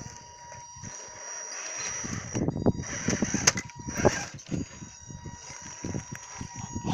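Radio-controlled scale crawler climbing over rocks: a faint steady electric motor whine, with irregular scrabbling and knocking of its tyres and chassis on the rock that grows louder around the middle.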